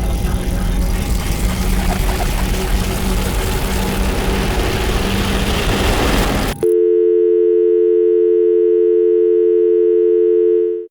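A loud, dense wall of mixed noise that grows louder, then cuts off abruptly about six and a half seconds in. A steady telephone dial tone of two held tones replaces it and stops just before the end.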